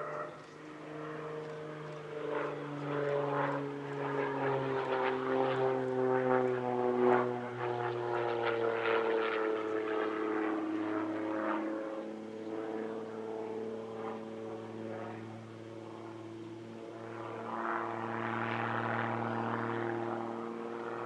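Extra 300L aerobatic plane's six-cylinder Lycoming engine and propeller in flight. The engine note slides steadily down in pitch over the first half, then holds, growing louder and softer as the aircraft manoeuvres.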